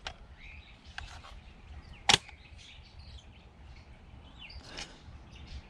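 Quiet handling of small plastic electrical items, with faint scattered clicks and one sharp click or knock about two seconds in.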